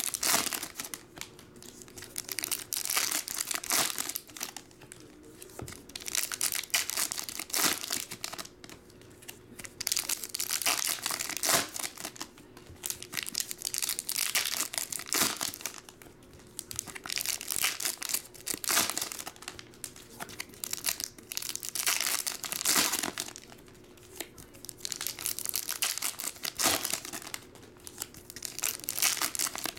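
Foil trading-card pack wrappers being torn open and crinkled, one pack after another, in repeated bursts of crackling every few seconds with short quieter gaps between.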